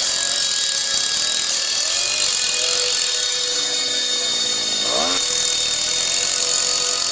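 Thrall DHD-58 petrol jackhammer, with a 32.6 cc single-cylinder two-stroke engine, running and hammering a pointed chisel into rock. The engine pitch sweeps up briefly about five seconds in.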